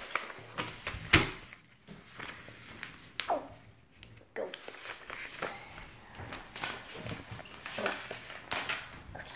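Handling sounds of a paper book on a wooden table: pages being turned and small knocks, with one sharper knock about a second in.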